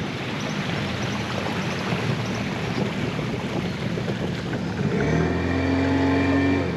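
Motorboat under way on a river: wind and water rushing past, then a steady engine drone joins about five seconds in.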